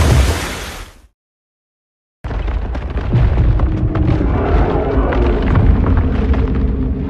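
Film destruction sound effects. A loud explosive rumble fades away in the first second. After a second of silence, a deep rumble of crashing debris starts abruptly, with many crackles and impacts and a faint low drone beneath.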